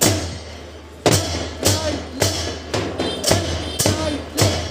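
A marching drum beat, struck about twice a second with a low thud on each beat, keeping step for marchers. A voice calls along in time between the beats.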